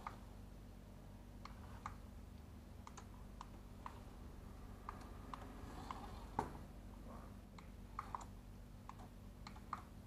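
Plastic buttons on a toy RC car's handheld remote clicking faintly and irregularly as they are pressed, a dozen or so clicks with the loudest a little past halfway, over a low steady hum.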